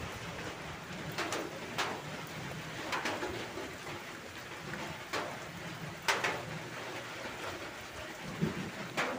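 Steady patter of rain, with water dripping in sharp separate taps every second or so.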